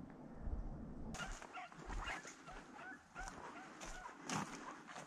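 A pack of deer hounds barking and yelping faintly, a quick string of short calls, after a second of wind rumble on the microphone.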